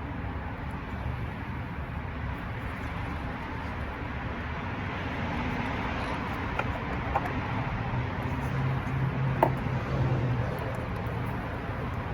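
A few light clicks and knocks as ignition coils are worked loose and lifted out of a four-cylinder engine, over a steady low background hum. The sharpest click comes about nine seconds in.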